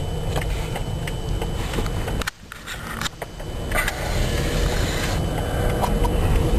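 Car driving on a snow-covered road, heard from inside the cabin: a steady low engine and tyre rumble with scattered small knocks. The sound drops out briefly a little over two seconds in.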